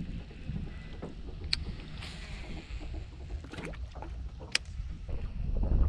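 Low wind rumble on the microphone over a small jon boat on open water, with a few light knocks and two sharp clicks, about a second and a half and four and a half seconds in.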